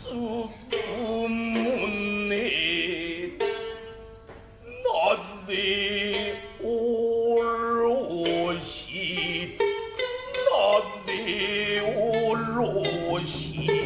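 Gidayū accompaniment for kabuki puppet acting: a shamisen plucking sharp notes every second or so under a chanter's long, wavering sung phrases.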